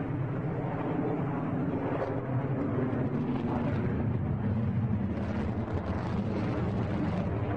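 Su-27 fighter jet's twin AL-31F turbofan engines in flight: a deep, steady jet noise with no breaks.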